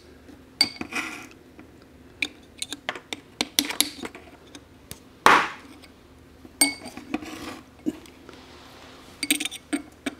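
Irregular sharp metallic clicks and clinks of small steel tools and parts against the gears and shaft of an assembled T5 transmission mainshaft, with one louder, longer clink about five seconds in.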